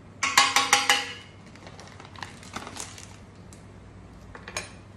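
A utensil knocking and scraping in a stainless steel pot while ingredients are mixed: a quick run of about six ringing metallic clinks in the first second, then a few lighter clinks and scrapes.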